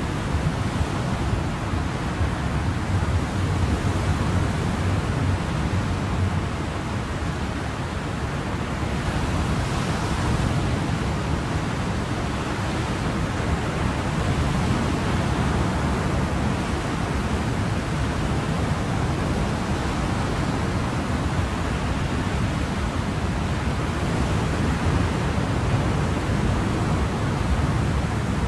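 Ocean surf: a steady, continuous wash of waves with a deep low rumble under a soft hiss, the hiss briefly brighter about ten seconds in.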